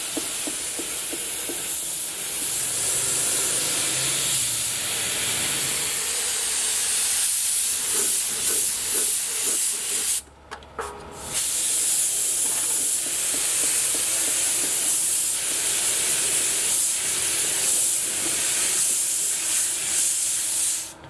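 Compressed-air paint spray gun hissing steadily as it sprays silver paint onto an exhaust-fan frame and motor housing, with a short break about ten seconds in.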